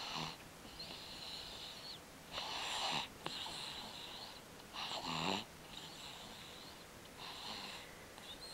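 Young infant snoring in sleep: a repeating breath cycle about every two and a half seconds, noisy snoring breaths alternating with a thin, high whistle through the nose.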